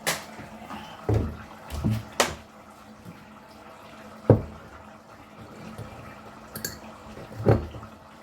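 A handful of separate dull knocks and sharp clicks, the loudest about four seconds in, with a faint watery sound between them: kitchen handling while rice is being readied in a rice cooker.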